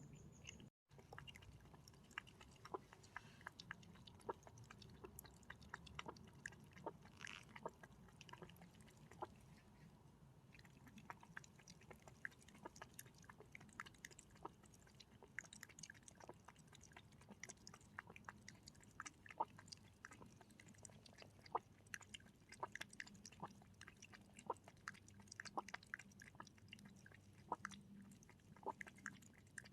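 An animal chewing and crunching dry food: faint, irregular sharp crunches, often several a second.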